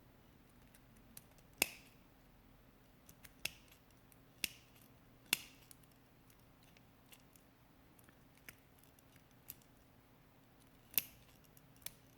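Small metal-cutting snips clipping through the metal of a corroded mouse scroll-wheel encoder: a string of sharp, irregularly spaced snips, a handful of them louder, with short gaps and a longer pause in the middle.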